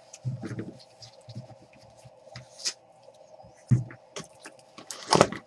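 Trading cards being handled and flipped through by hand: soft, scattered rustles and clicks of card stock sliding against card stock, with a couple of louder taps in the second half, over a faint steady hum.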